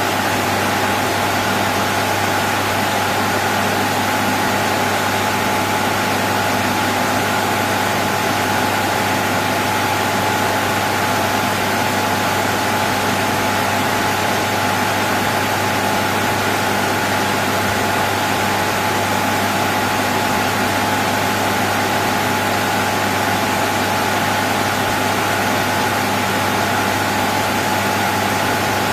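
Steady ambient noise of a computer server room: cooling fans making a constant rushing hiss, with a steady low electrical hum and a higher-pitched whine, unchanging throughout.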